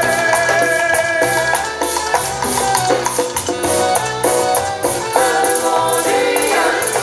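Live dance orchestra playing Latin dance music, with sustained melodic lines over a quick, even percussion beat.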